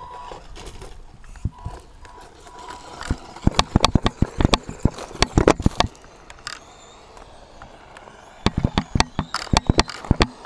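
DEERC 1:16-scale electric RC truck driving over rough ground, giving two runs of rapid clattering and scraping, about three seconds in and again near the end.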